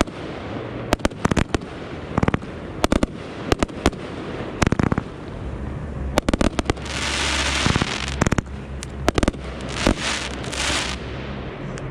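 Consumer fireworks: aerial shells going off in quick, irregular bangs and crackles, with a rushing hiss from ground fountains swelling up about seven seconds in and again near the end.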